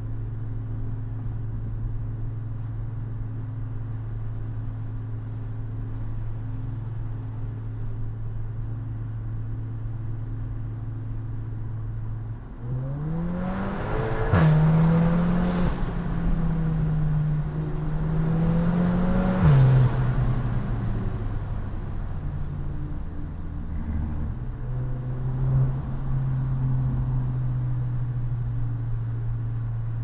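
Audi A3 engine running at a steady low drone, then accelerating about twelve seconds in with the pitch rising quickly. A short sharp pop comes a couple of seconds later, the revs climb again, and a second pop comes near twenty seconds. The engine then settles back to a steady cruise.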